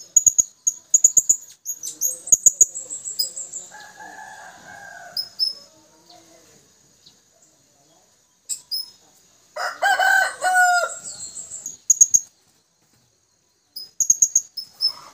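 Blue-crowned hanging parrots (serindit) calling: strings of very high, thin, rapid chirps repeated every few seconds. A rooster crows once, loudly, about ten seconds in.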